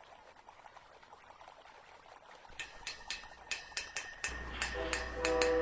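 Faint crackling hiss, then a run of sharp, irregular clicks about halfway through. Near the end a low hum and a steady, held chord of tones join the clicks.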